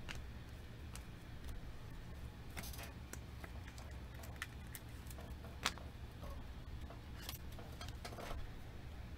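Trading cards and a foil card pack being handled on a tabletop: scattered small rustles and clicks, the sharpest a little past halfway, over a steady low hum.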